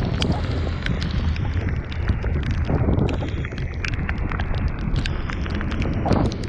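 Wind buffeting the camera's microphone while riding through heavy rain, with frequent sharp ticks of raindrops hitting the camera, over a steady hiss of rain and wet road.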